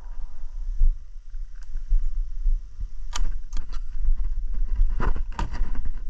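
Footsteps crunching on a gravel road, with a cluster of sharp crunches past the middle and another near the end, over a steady low rumble of wind on the microphone.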